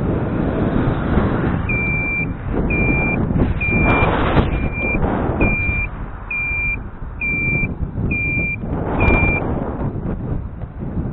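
An electronic beeper sounding nine short beeps at one steady pitch, a little under one a second, starting about two seconds in and stopping near the end. Under it runs wind buffeting the microphone and the rumble of riding over rough ground.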